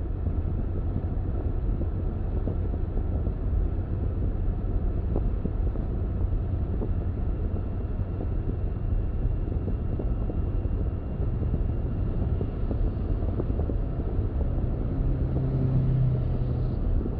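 Car driving along: a steady low rumble of road and engine noise, with a low hum that swells briefly near the end.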